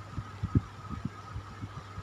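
Electric fan running with a steady low hum and a thin whine, over irregular soft low knocks several times a second.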